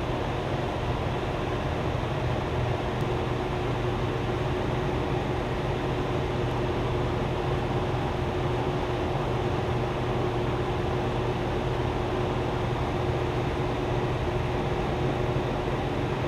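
Steady machine hum: a low drone with a faint steady tone above it, unchanging throughout.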